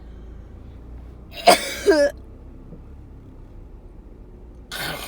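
A woman with a head cold and a wet cough in a fit of sneezes and coughs: two sharp voiced bursts about half a second apart, a second and a half in, then a shorter, breathier one near the end.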